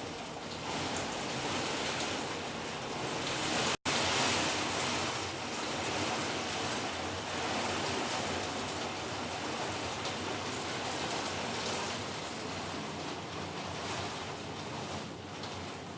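Heavy thunderstorm downpour: a steady hiss of rain, cut out for an instant about four seconds in.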